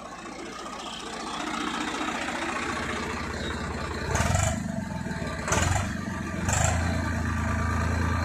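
Swaraj 855 FE tractor's three-cylinder diesel engine running, with three short loud bursts about a second apart midway, then running steadily with a stronger low hum.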